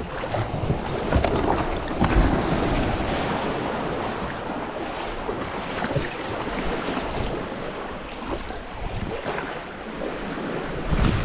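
Sea water sloshing and splashing around a sit-on-top kayak being paddled on the open sea, with wind gusting on the microphone.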